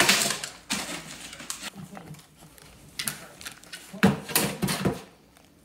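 A vizsla dog tearing and shaking a cardboard package: several separate bursts of cardboard rustling and ripping, the loudest from about four to five seconds in, together with a few low vocal sounds from the dog.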